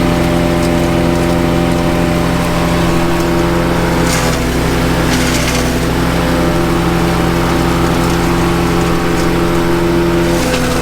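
Honda-engined self-propelled wood chipper running steadily at speed, with brief crackling bursts of branches being shredded about four and five seconds in and again near the end.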